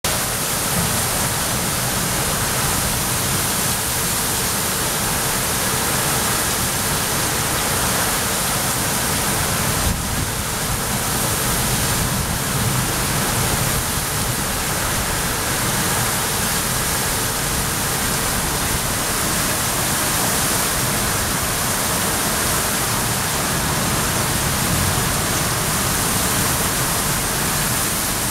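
Torrential rain pouring down in strong wind gusts: a steady, dense hiss with an uneven low rumble underneath.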